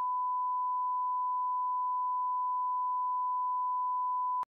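Steady 1 kHz electronic test tone, a single pure pitch held at an even level, cutting off abruptly near the end.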